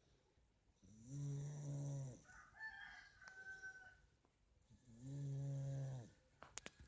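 Someone asleep snoring: two deep, even snores of about a second each, roughly four seconds apart. A chicken calls faintly between them, and a few sharp clicks come near the end.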